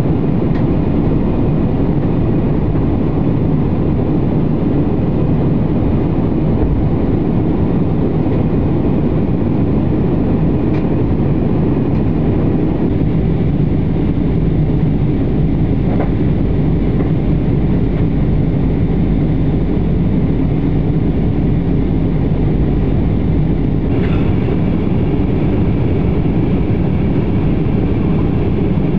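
Steady airliner cabin noise in flight: a low, even rumble of engines and airflow heard from inside the cabin, with a couple of faint clicks partway through.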